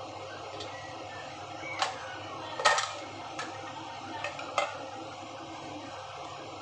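A handful of short clicks and light knocks as a cube of butter is dropped into a wok, the loudest a little under three seconds in, over a steady background hiss.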